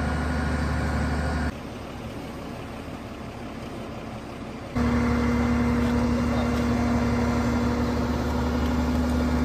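Fire engine's engine running steadily to power the extended aerial ladder, a low hum with a held tone. It drops quieter about a second and a half in, then returns louder about five seconds in.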